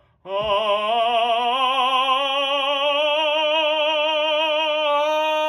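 Classical, operatic voice holding one long sung note for about five seconds with even vibrato, as a legato breath-support (appoggio) exercise.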